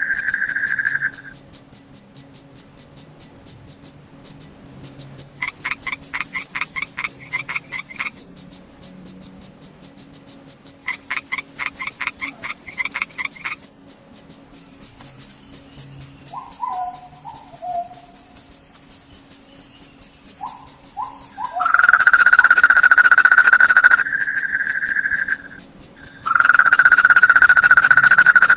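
Night chorus of crickets chirping in rapid, steady pulses. A lower continuous trill drops out just after the start and returns twice in the last third, and two stretches of lower, fast pulsed calls come in about five and eleven seconds in.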